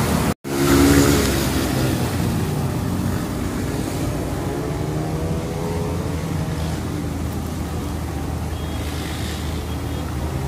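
Floodwater rushing along a street, with a motor vehicle's engine running under it and rising and falling in pitch in the middle. The sound cuts out for a moment about half a second in.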